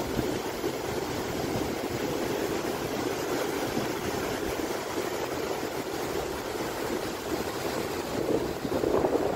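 Fast floodwater rushing and churning through the dam in a steady, even rush of whitewater; the current is strong from rain.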